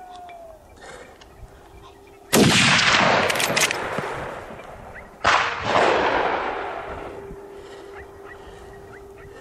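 Two gunshots from a hunting gun, about three seconds apart. Each rolls away in a long fading echo off the surrounding hills.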